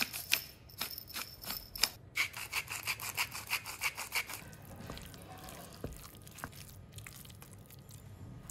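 Pepper mill twisted by hand, grinding black pepper in quick rasping strokes for about two seconds, then a salt grinder grinding for about two seconds more. After that, a quieter soft stirring of a spoon through a moist ricotta and broccoli filling.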